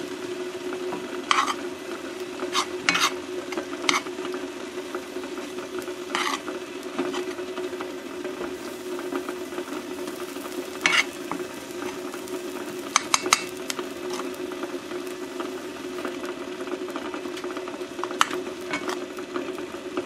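Egg scramble sizzling in a hot cast iron pan while it is stirred, with a utensil scraping and knocking against the pan every few seconds.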